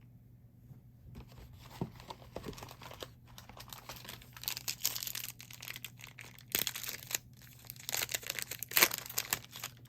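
Wrapper of a Panini Mosaic basketball card pack being torn open and crinkled in the hands: a run of crackling, with the sharpest rips about two-thirds of the way through and near the end.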